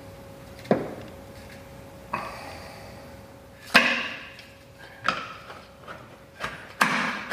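Sharp clicks and knocks from hand work on the bike lift's control cord and plastic control unit at its wall bracket: about five, spaced a second or so apart, the loudest near the middle, with a short scraping rustle before it. A faint steady hum lies underneath.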